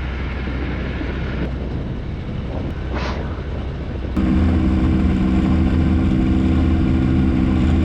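Ultralight aircraft's Rotax engine running steadily at low power. About four seconds in the sound jumps abruptly louder to a fuller, steadier hum.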